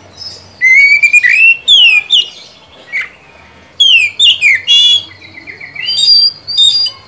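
Oriental magpie-robin singing: loud, clear whistled phrases of quick sliding notes, with a short break near the middle and a fast rattling trill about five seconds in.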